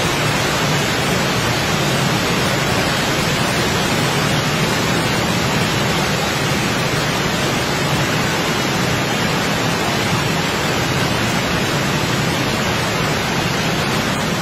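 Muddy floodwater rushing through rapids, a loud, steady, unbroken wash of water noise.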